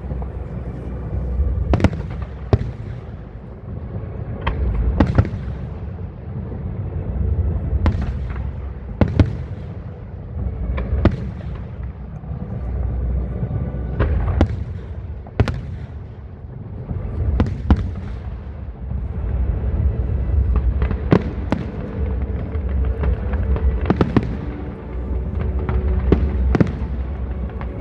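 Aerial fireworks display: firework shells bursting in sharp bangs every second or two, some in quick doubles, over a continuous low rumble of explosions.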